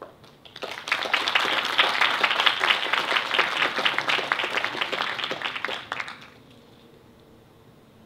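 Audience applauding, starting just under a second in and stopping about six seconds in.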